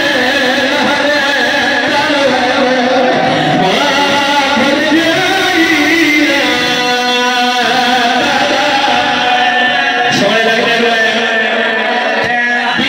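A zakir's sung majlis recitation: one man's voice chanting long, drawn-out lines that slide up and down in pitch, amplified through a microphone.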